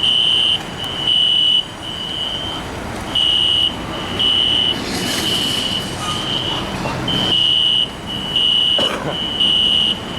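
Building fire alarm horns sounding, a high-pitched beep repeating about once a second, with louder and fainter horns overlapping out of step. A brief rush of noise comes about five seconds in.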